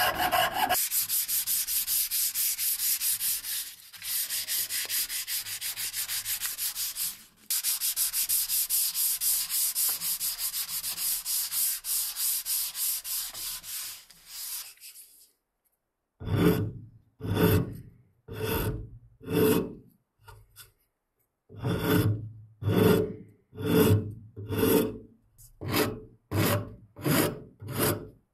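Hand-sanding a round wooden axe handle clamped in a vise: fast, even rubbing strokes that stop about halfway. From about 16 s a rasp shapes the end of the wooden handle in separate scraping strokes, about one a second and quickening near the end.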